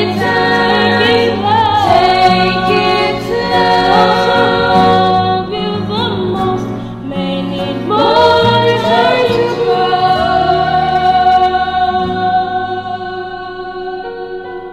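A woman's voice sung in layered harmony with copies of itself, a slow song of long held notes with vibrato, dying away near the end.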